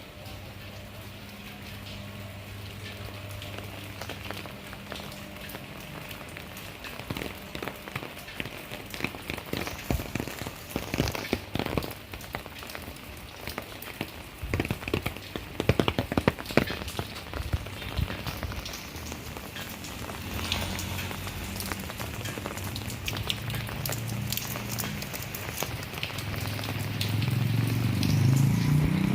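Steady rain falling, with many drops tapping on nearby surfaces and a run of louder, quicker drips in the middle. A steady low hum sits under it at the start, and a small engine grows louder near the end.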